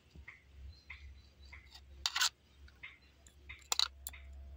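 Metal spoon clicking against plastic cups and a bowl. There are a few sharp clicks, loudest about two seconds in and again near the end, with softer short ticks between them over a steady low hum.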